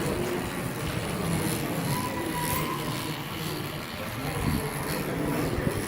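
Crowded exhibition hall ambience: a steady hubbub of background chatter and general room noise, with a faint brief whine about two seconds in.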